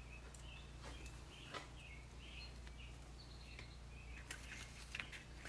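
Faint, quiet workshop sound: a steady low hum under scattered faint chirps of small birds, with a few light clicks and taps as EVA foam pieces are handled on a wooden workbench, most of them near the end.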